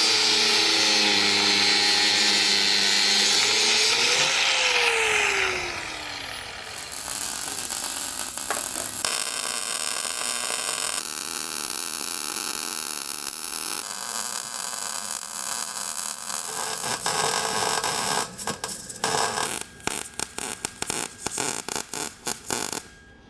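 Angle grinder with a cut-off wheel cutting steel plate, running steadily and then winding down about five seconds in. After that, MIG welding in several short segments, ending with a run of brief, stop-start tack welds.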